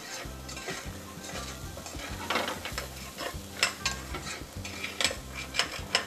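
Diced bacon and leek frying gently in a stainless steel saucepan, with a soft steady sizzle. A spoon stirring through it scrapes and clinks against the pan several times.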